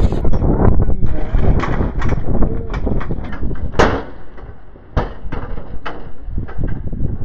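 An iron street sign falling: a string of knocks and one sharp bang about four seconds in, over heavy rumbling handling noise from a jostled handheld camera.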